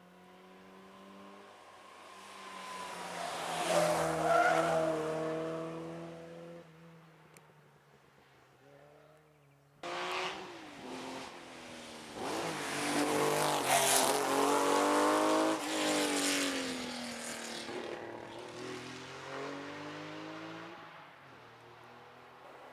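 Rally car engines at racing speed: a first car approaches, is loudest about four seconds in and fades away. About ten seconds in, a second pass cuts in abruptly, its revs climbing and dropping through gear changes, and it fades toward the end.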